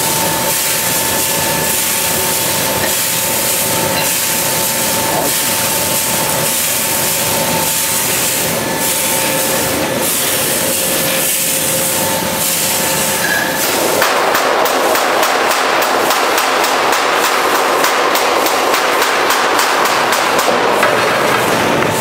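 Stainless-steel drum roasting machine running, its rotating drum tumbling sesame seeds with a steady hiss over a steady whine from the drive. About two-thirds of the way through the sound grows louder and grainier, with rapid fine clicking.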